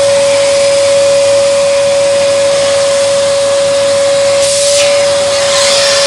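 Fantom İkoncan TR8500 bagless canister vacuum cleaner running steadily: a loud, even rush of air with a constant mid-pitched whine from the motor.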